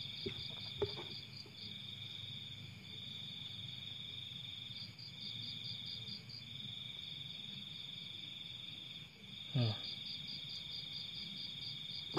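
Crickets chirring steadily in a high trill that breaks off and resumes every second or two. There are faint splashes of hands in a tub of water near the start, and a short low sound about ten seconds in.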